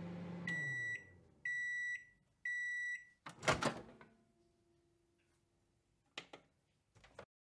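Microwave oven finishing its cycle: the running hum winds down, three half-second beeps sound for the end of the cycle, then the door pops open with a loud clunk. A faint hum and a couple of small clicks follow near the end.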